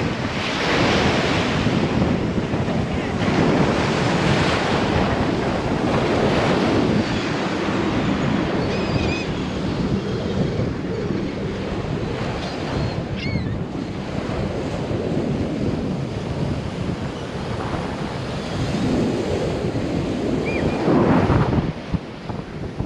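Ocean waves breaking and washing up a steep sand beach, swelling and ebbing every few seconds, with wind buffeting the microphone.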